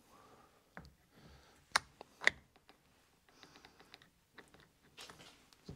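Small metal gears of a planetary gearbox clicking and clinking as they are fitted back onto their shafts by hand, with two sharper clicks about two seconds in.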